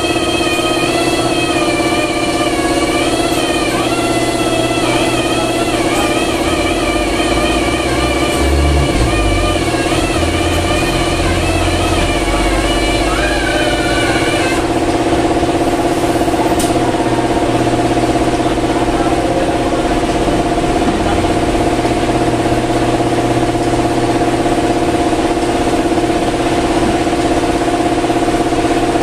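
A steady mechanical hum with a constant pitch runs throughout. For the first half, a wavering pitched sound rides over it and stops abruptly about halfway through.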